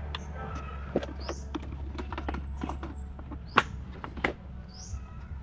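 Irregular light clicks and taps, the loudest two about three and a half and four seconds in. A bird gives a short high rising chirp every second or two, over a steady low hum.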